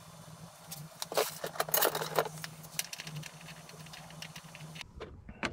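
Hard parts clinking and rattling as they are handled, in a quick cluster from about one second in to past two seconds, over a steady low hum that stops abruptly near the end.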